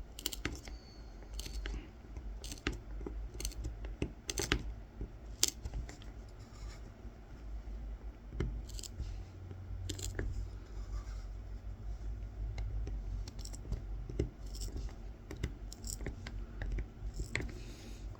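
A kolrosing knife scoring fine lines into the wooden coffee scoop: short scratchy cuts and irregular small clicks as the blade is drawn through the wood and lifted.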